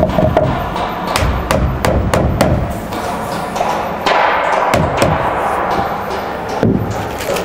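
Steel claw hammer driving nails into a wooden door jamb: a quick run of sharp blows in the first two and a half seconds, then a few scattered knocks.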